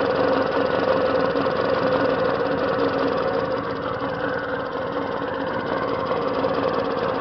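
1978 Puch moped's 49 cc two-stroke single-cylinder engine idling, turned down to run as slowly as it will without stalling. It runs steadily with an even, rapid pulse.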